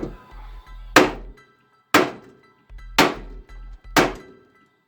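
Background music with a beat: a sharp ringing percussive hit about once a second over a pulsing bass line.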